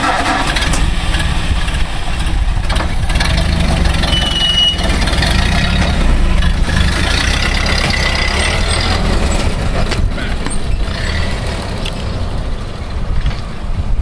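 Engine of an old 1929 Ford truck running steadily as the truck drives, with a brief high squeak about four seconds in.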